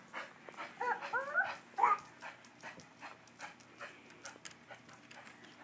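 A dog whimpering, a few short bending whines about a second in, then panting in quick, even breaths.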